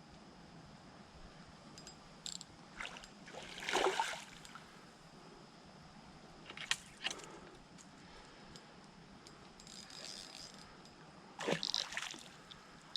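A hooked northern pike being played on a spinning rod: scattered short splashes and mechanical clicks over a faint steady background, loudest about four seconds in and again near the end.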